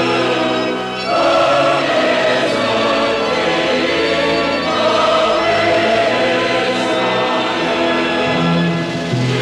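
Music: a choir singing held chords.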